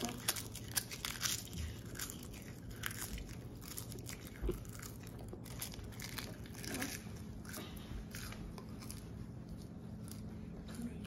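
Dry, crisp sheets of roasted seaweed being bitten and chewed: a run of small crunches and crackles that thins out after about seven seconds.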